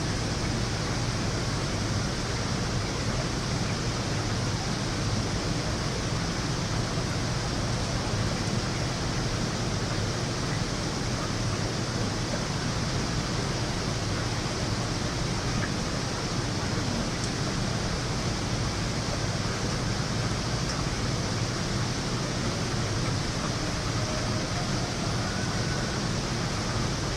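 Heavy rain pouring steadily during a thunderstorm, an even rushing hiss with no thunderclap.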